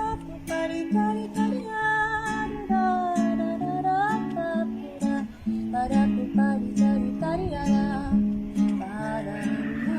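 Acoustic guitar picking a song, with a higher melody line over it that bends and slides in pitch.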